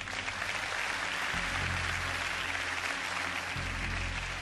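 Audience applauding over background music with low held bass notes that change twice.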